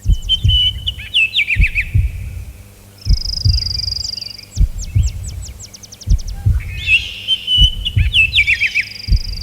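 Small songbirds chirping and trilling: short notes, a buzzy high trill and rapid falling notes, with a dull low thud repeating about twice a second underneath.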